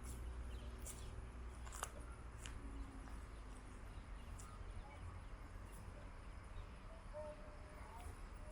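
Faint outdoor ambience with a steady low rumble, three sharp clicks in the first two and a half seconds, and a few short bird chirps near the end.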